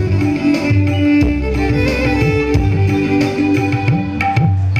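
Electric violin playing a melody of held notes over an accompaniment of drums and deep bass.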